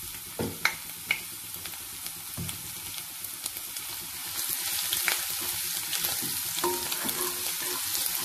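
Finely chopped ginger and garlic sizzling in hot oil in a non-stick kadai, stirred with a wooden slotted spatula. A few sharp knocks come in the first second or so, and the sizzle grows louder about halfway through.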